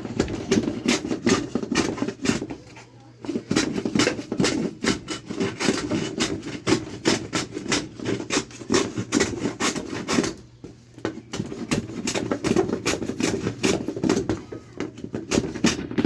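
A hand tool worked rapidly back and forth on wood, in fast scraping strokes several times a second. It comes in three runs, breaking off briefly about three seconds in and again about ten seconds in.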